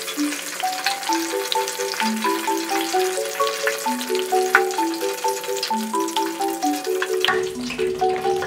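Hot oil in a stainless deep fryer sizzling steadily with many small crackles as plastic LEGO bricks fry in it. A light background tune of short stepping notes plays over the sizzle.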